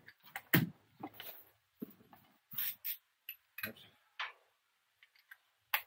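Irregular metallic clicks and clinks of hand tools being handled, a socket and wrench being fitted to a suspension nut, with the loudest clink about half a second in.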